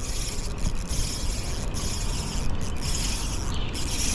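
Shimano Stradic FL 1000HG spinning reel being cranked, its gears and rotor whirring steadily as a lure is retrieved, with a brief dip in the sound about once a second.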